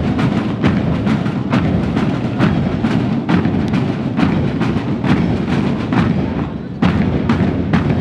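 Marching band playing for a parade march past, its drums beating a steady march time of about two strikes a second over the band's sustained low tones.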